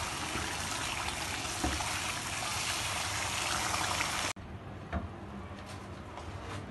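Chicken in a thick masala gravy sizzling and bubbling hard in a frying pan, a steady crackling hiss. It cuts off abruptly about four seconds in, leaving a much quieter stretch with a light knock.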